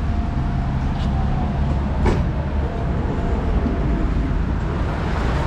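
Red electric tram pulling in along the stop, a steady low rumble of its wheels on the rails with a faint, level whine over the first couple of seconds and a sharp clunk about two seconds in.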